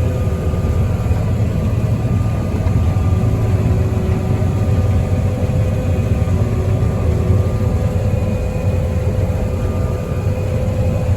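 A heavy farm machine's engine, a combine or tractor, running steadily. It makes a deep drone with a faint steady whine on top.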